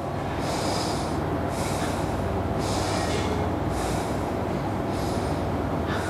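A man's breathing heard close up, hissing breaths through the nose in a paced breathing exercise, about one a second. Under it runs a steady low rumble.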